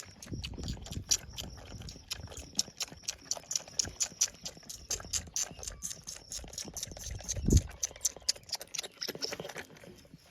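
Goat hooves clattering on a hard floor: a quick, uneven run of sharp taps with a few dull thumps, the heaviest about seven and a half seconds in.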